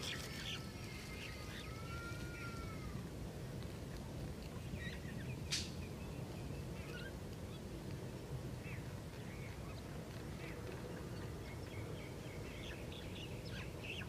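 Birds chirping and calling over a steady low background hum, with two arching, rise-and-fall whistled calls in the first few seconds and a sharp click about five and a half seconds in.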